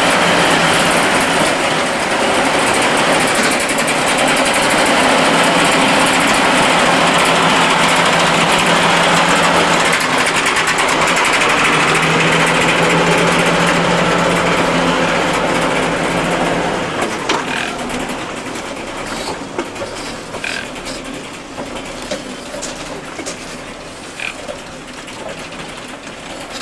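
Narrow-gauge diesel locomotive's engine running steadily at idle. About two-thirds of the way through the sound drops away to a quieter background with scattered clicks.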